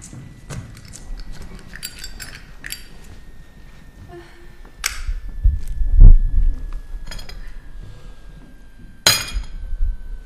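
Scattered small clinks and clicks, with one heavy dull thump about six seconds in and a sharp click about nine seconds in.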